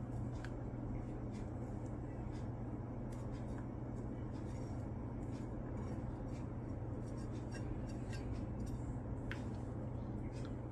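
Faint, scattered clicks and taps of a utensil working the seeds out of a papaya, over a steady low hum.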